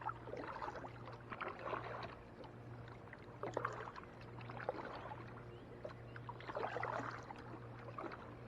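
Kayak paddle strokes: the blades dip and splash in the water every second or two, with water dripping off between strokes.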